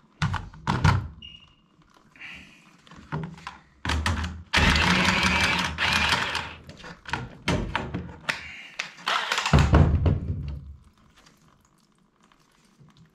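Knocks and clunks of pipework and tools being handled while heating pipe is cut out at a radiator, with two louder stretches of dense rushing noise, the first lasting about two seconds, the second shorter.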